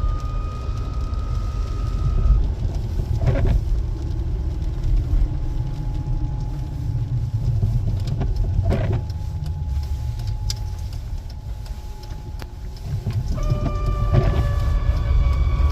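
Mercedes-Benz W202 C180 running with a steady high-pitched squeal over its low rumble. The squeal stops after about two seconds, a fainter lower squeal carries on through the middle, and the loud squeal comes back near the end. Two short knocks are heard in between.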